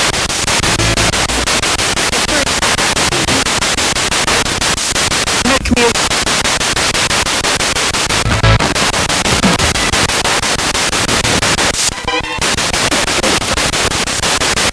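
Spirit box radio sweeping rapidly through stations: loud, continuous static hiss chopped into quick steps, with brief snatches of broadcast music and voices breaking through here and there.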